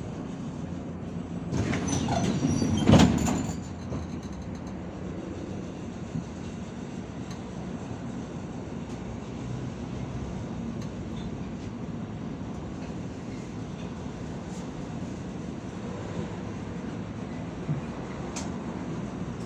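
Steady engine and road drone heard inside a MAZ-105 city bus as it runs. About two seconds in a louder burst of noise rises and ends in a sharp bang.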